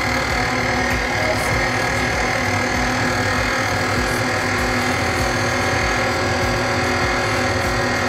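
KitchenAid tilt-head stand mixer running at a steady speed, its flat beater churning thick batter in the stainless steel bowl: an even motor whir that holds without change.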